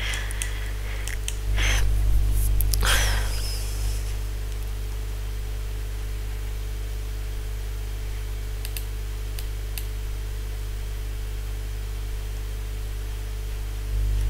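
Steady low electrical hum on the recording, with a few short clicks in the first few seconds and fainter ticks around the middle.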